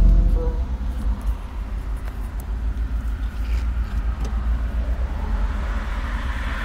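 Car engine and road noise heard from inside the cabin while driving: a steady low rumble, with a few faint light clicks in the middle and a rising hiss near the end.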